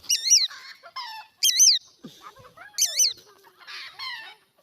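Birds calling: three loud, high-pitched, quavering calls, with softer, lower calls in between.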